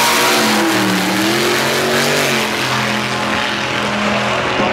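Drag-racing cars accelerating down the strip at full throttle, a loud engine note over a harsh exhaust blare. The pitch dips and climbs again about a second in, then holds steady.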